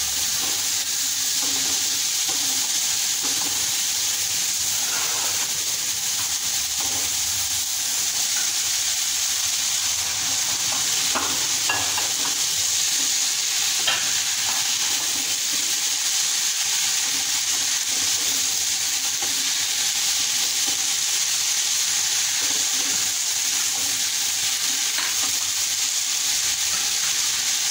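Chopped greens, mixed partway through with cooked chickpeas and red beans, sizzling steadily as they fry in oil in a nonstick pot while a silicone spatula stirs and scrapes them. A few light clicks of the spatula against the pot.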